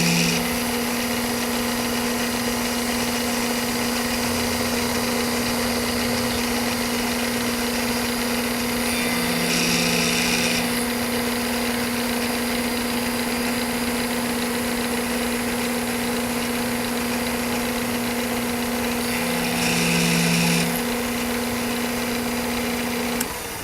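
Bridgeport milling machine running while a 1/2-inch two-flute high-speed steel end mill cuts the profile of an aluminum part: a steady machine hum, described as kind of noisy. The cutting noise swells louder and hissier about every ten seconds.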